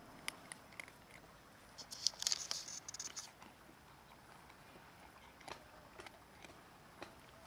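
Cats crunching dry kibble from a metal tray: faint scattered clicks and crunches, with a louder cluster of crackling crunches lasting about a second, around two seconds in.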